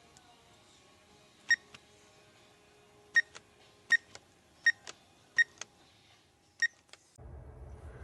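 Alarm-system keypad buzzer beeping at key presses: six short, high beeps at uneven intervals, each followed by a fainter second pulse. A low steady hum comes in near the end.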